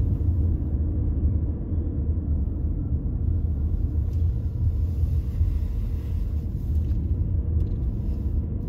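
Steady low rumble of a car in motion, heard from inside the cabin: engine and road noise.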